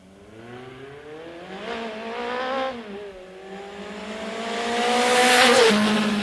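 Sound effect of a car engine revving: the pitch climbs for about two and a half seconds, drops back briefly, then climbs again, growing louder with a rushing hiss near the end.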